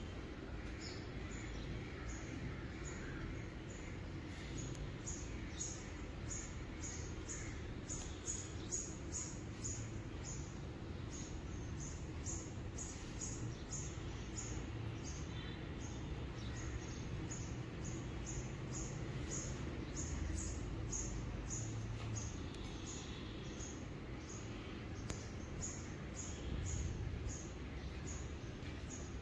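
A long, even series of short high chirps, about two to three a second, from a small unseen animal, over a low steady rumble.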